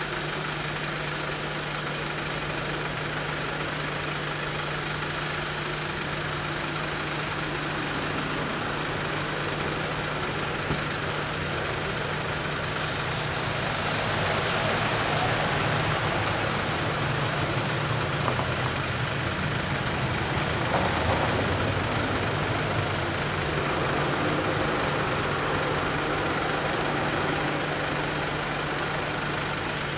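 Van engine idling with a steady low hum, joined about halfway through by the engines and tyres of cars pulling up and waiting.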